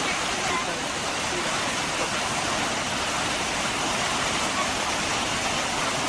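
Heavy whitewater of a large waterfall rushing steadily, a dense even roar of falling and churning water.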